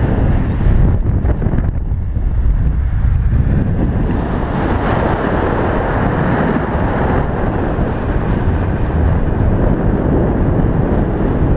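Loud wind rushing over a helmet-mounted camera's microphone in fast speed-flying flight. The rush gets brighter and stronger about four seconds in as the wing speeds up in the low swoop.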